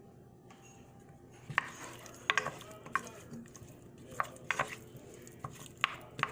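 A utensil stirring diced potatoes and Chinese sausage in a frying pan, knocking and scraping against the pan in irregular sharp clinks that start about a second and a half in.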